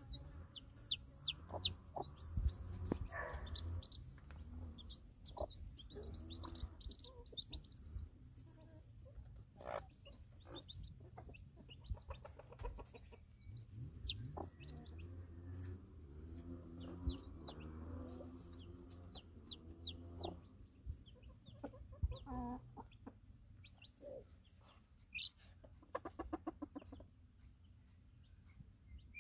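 Newly hatched chicks peeping over and over in quick high notes while a mother hen clucks low among them, with a stretch of low clucking in the middle.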